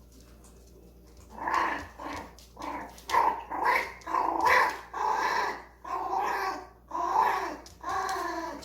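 A dog growling in a run of about ten short, pitched calls, one after another, starting about a second and a half in.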